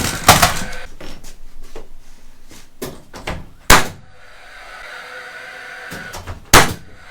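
Nails being driven into plywood and 2x4 blocking: a few loud, sharp strikes spaced seconds apart, with smaller knocks and handling between and a faint steady hum in the second half.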